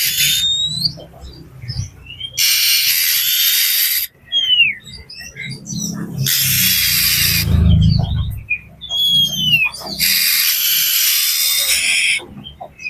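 Oriental magpie-robin (kacer) calling agitatedly: three long, harsh, rasping churrs of about a second and a half each, with short whistled notes sliding up and down between them.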